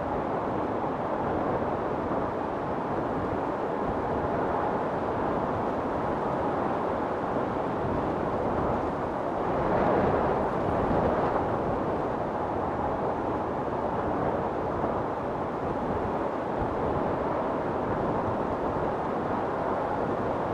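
Storm wind blowing steadily, with one gust swelling louder and higher about ten seconds in before easing back.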